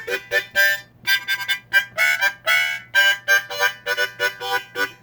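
Background music: a quick run of short, bright pitched notes, several a second.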